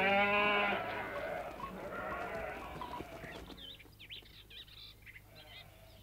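A flock of sheep bleating, several wavering calls overlapping. They are loudest in the first second and die away by about halfway.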